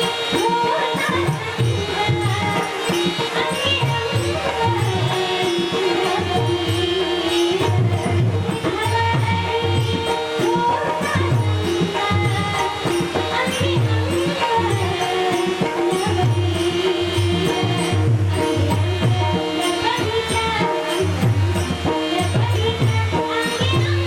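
Indian music: a drum keeps a steady rhythm under a held drone and a melodic line.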